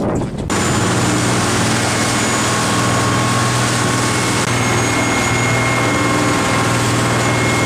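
Charter boat's engine running steadily under way, heard from inside the wheelhouse cabin: a constant low drone with a faint steady whine over a wash of noise. It begins abruptly about half a second in.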